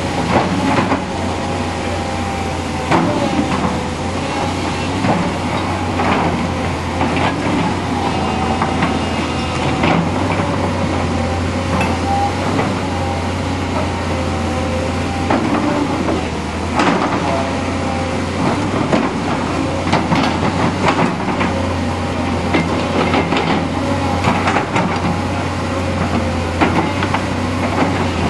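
Diesel earthmoving machinery working, led by a Volvo crawler excavator digging soil. The engine drones steadily, a whine rises and falls as the engine and hydraulics load and ease, and the bucket and soil knock and clank irregularly.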